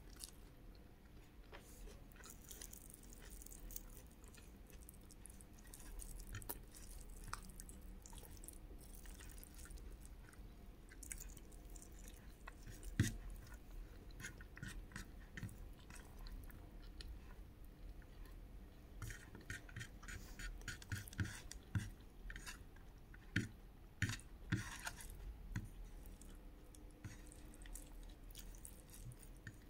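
A person chewing mouthfuls of chickpea curry and rice, with many short wet clicks. One sharper click comes near the middle, and the clicks come thicker toward the end.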